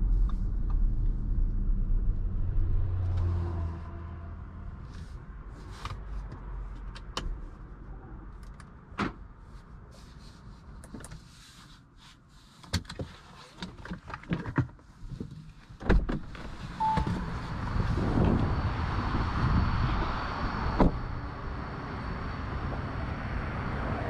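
Low road and drivetrain rumble of the 2021 Audi Q5 fades as the SUV comes to a stop and is switched off. A run of clicks and knocks from the cabin follows, then a loud thump about 16 seconds in, typical of a car door shutting, and a short beep just after it. Steady outdoor noise runs to the end.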